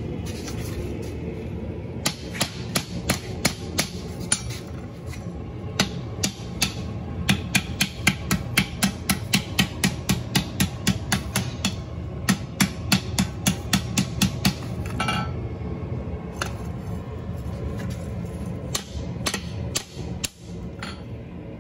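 Hand hammer striking a red-hot steel bar on an anvil, rolling it into a scroll: runs of quick blows, about four a second, starting about two seconds in and stopping about fifteen seconds in, then a few single blows near the end. A steady low rumble runs underneath.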